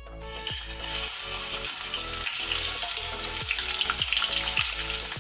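Chicken wings sizzling hard in hot cooking oil in a pan, the hiss starting about half a second in as the frying takes hold and cutting off suddenly just before the end.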